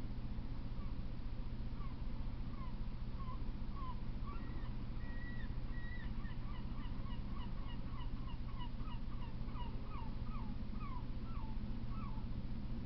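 Birds calling in a long run of short repeated notes, sparse at first and then about two to three a second from midway, stopping near the end, over a steady low hum.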